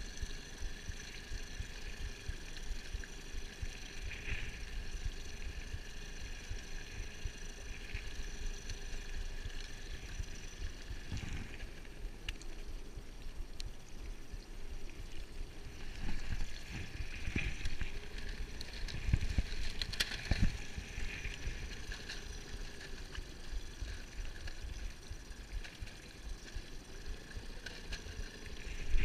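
Wind buffeting the microphone and water lapping around a small inflatable boat, with a faint steady hum and a few light knocks.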